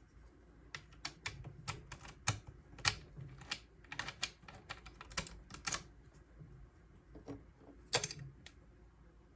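Lock pick and tension wrench working the wafers of an arcade wafer-slider lock: a run of sharp, irregular small metal clicks, with one louder click near the end.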